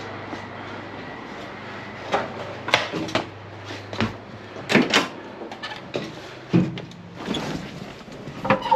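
A series of irregular knocks and clunks, about nine in all, from hands-on work around the car. A low steady hum runs underneath and stops about four seconds in.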